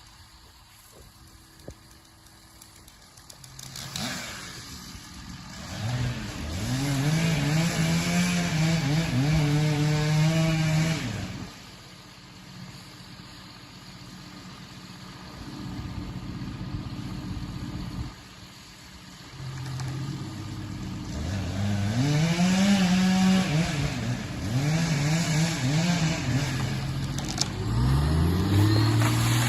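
An engine revving up and holding high, then easing off, in two long spells separated by a quieter stretch.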